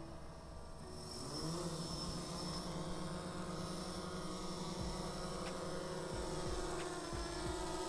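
A drone's electric motors and propellers spin up about a second in, rising briefly in pitch, and then run at a steady buzzing hum.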